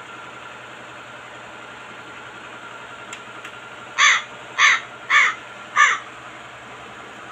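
A crow cawing four times in quick succession, a little past the middle, over a steady low background hiss.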